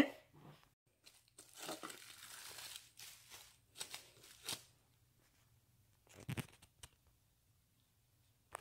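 Faint tearing and rustling of cardboard box packaging being opened by hand, with a soft knock about six seconds in and a couple of light clicks.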